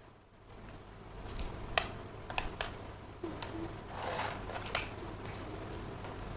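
Small plastic toy kitchen pieces being handled: several sharp clicks and taps, with a short rustle about four seconds in.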